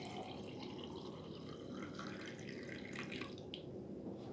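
Lukewarm water being poured in a thin stream, easing off about three seconds in, with a light click near the end.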